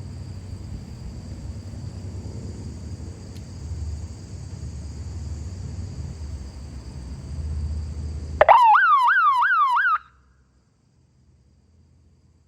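Ademco 702 electronic alarm siren sounding in short bursts: a fast, repeating yelp that sweeps in pitch about three times a second, starting suddenly near the end and cutting off after about a second and a half. Before it there is only a low rumble.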